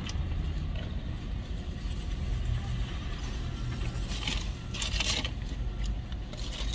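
Steady low rumble inside a car's cabin, with two short hissy rustles about four and five seconds in.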